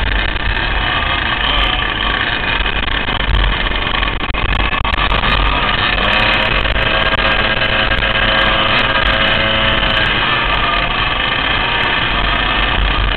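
Two-stroke 100cc dirt-kart engines running at racing speed, a loud continuous buzz with heavy rumble and wind noise on the helmet camera. The engine note steadies and stands out more clearly from about six to ten seconds in.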